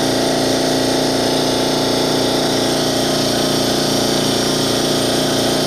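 2001 Dodge Ram 2500's 24-valve Cummins turbo-diesel inline-six idling steadily through a 3-inch straight-pipe exhaust with no muffler, heard at the open tailpipe.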